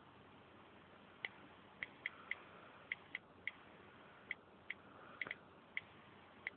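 iPod touch 3rd generation keyboard clicks from its built-in speaker, one faint tick per key tapped as a passcode is typed: about a dozen irregular ticks.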